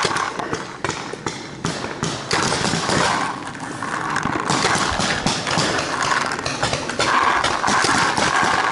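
Paintball markers firing, a dense, irregular run of sharp pops and clicks with no pause.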